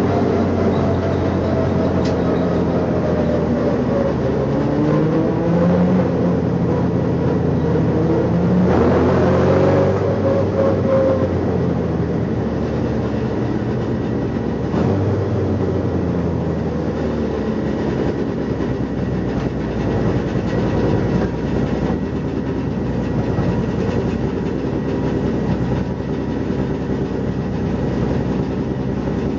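Race car engine at racing speed, heard from inside its stripped, roll-caged cabin. Its pitch falls and rises several times as the revs drop and climb, over a steady rushing noise.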